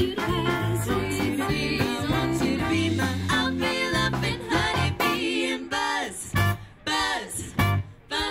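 Swing band playing live, with brass, saxophone and a bass line, and a trio of women singing into microphones. In the last couple of seconds the band plays short, sharp hits with gaps between them.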